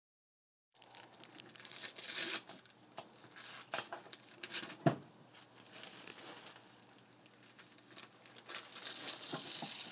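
Wrapping paper rustling, crinkling and tearing as presents are unwrapped, starting about a second in, with scattered light knocks and one sharper knock about five seconds in.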